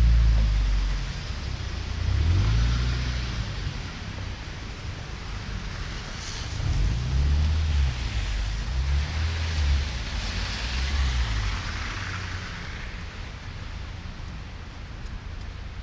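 City street traffic in falling snow: cars passing on a snow-covered road, their tyre hiss swelling and fading twice, over a low, uneven rumble.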